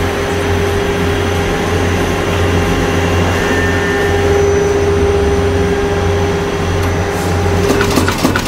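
HNP-518 multi-station nut former running: a steady motor and flywheel hum with a constant mid-pitched tone. Near the end a rapid clatter of forming strokes starts, about four a second.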